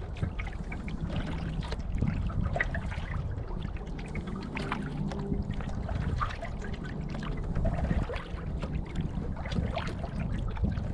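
Small waves lapping and splashing against a canoe hull, with irregular little splashes and trickles of water, over a steady low rumble of wind on the microphone.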